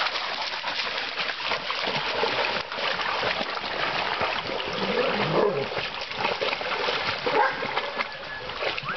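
Water splashing as several dogs wade and run through a shallow, rocky creek.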